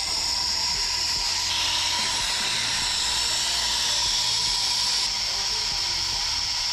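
Dibo pressure washer spraying roof-tile cleaning fluid through a foam lance: a steady hiss of spray with the machine's hum and a faint whine underneath.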